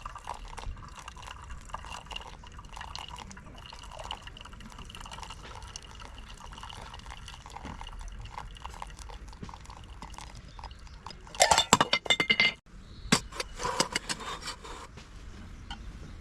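Steady liquid sound with many small pops and drips. About eleven seconds in comes a burst of loud clattering, followed by more clinks a second later.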